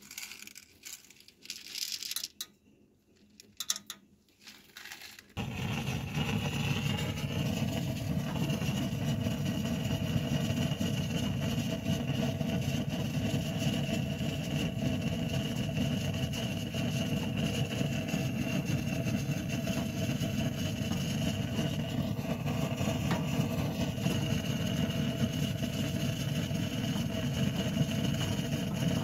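Popcorn kernels rattling as they are poured into an aluminium drink can. About five seconds in, a gas torch flame starts suddenly and runs as a steady, even rush of noise, heating the can to pop the kernels.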